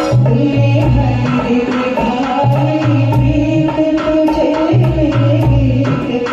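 Hindi film song music with a steady tabla rhythm, deep bass drum strokes and a sustained melody line over it.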